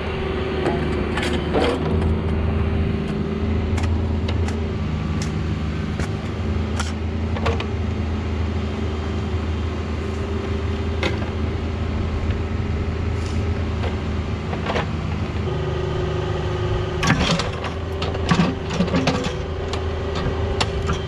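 Cat 304 mini excavator's diesel engine running steadily as it digs, with sharp scrapes and clanks from the bucket working dirt and rock. A burst of heavier knocks comes near the end as the bucket handles a boulder.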